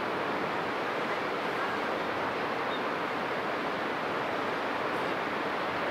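Steady rushing of wind-driven waves and water wash in the strait, an even hiss with no distinct engine tone.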